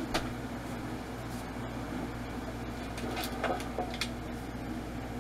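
Steady mechanical hum of a kitchen appliance, with a sharp click or two at the start and light knocks of things being moved on the counter about three to four seconds in.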